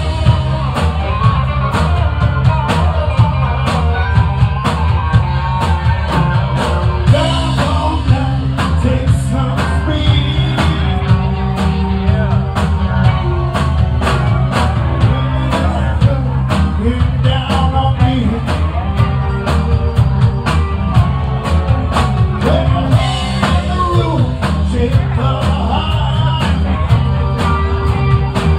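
Live rock band playing: electric guitars, bass and a drum kit keeping a steady beat, with a singer.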